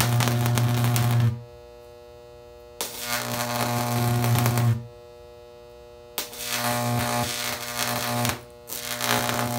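A high-voltage arc, burning yellow with sodium, drawn out with a rod, giving a loud, deep mains buzz with crackle. It cuts out and is struck again three times, going quiet for a second or so after the first two breaks and only briefly before the last restart.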